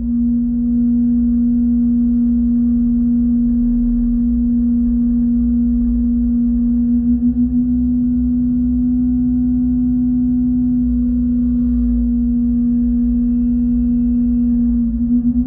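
Lipa TLE-FS 90 forestry mulcher running on a Yanmar Vio-80 mini excavator: a loud, steady hum with a low rumble beneath it. The hum wavers briefly about seven seconds in and again near the end.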